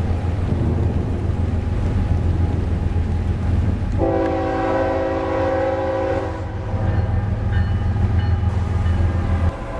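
Nathan K5HL five-chime locomotive air horn sounding one blast of about two and a half seconds, starting about four seconds in, over the steady low rumble of the train.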